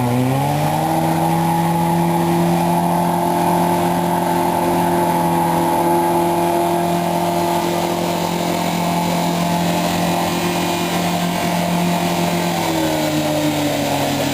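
Off-road vehicle's engine revving up under full throttle and held at steady high revs for about twelve seconds, then dropping back near the end.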